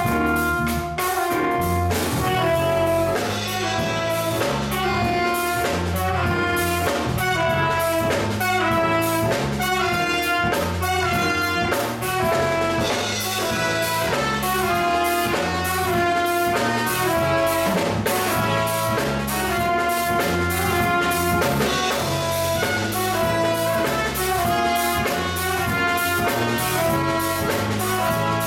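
Small jazz combo playing live: trombone, trumpet and saxophone playing together over a drum kit with steady cymbal time.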